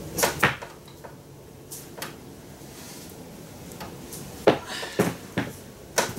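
Wooden gantry crane and its chain hoist taking a man's full weight as a load test: scattered knocks and clicks, a pair at the start and a louder cluster in the last couple of seconds. The crane holds him.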